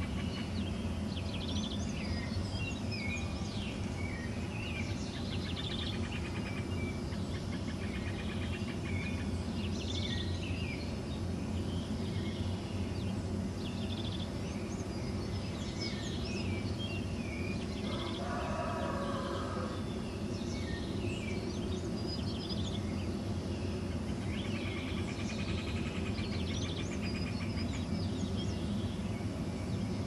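Dawn chorus of many songbirds, with overlapping chirps and whistles throughout over a steady low background rumble. About eighteen seconds in, a longer, lower-pitched call lasts about two seconds.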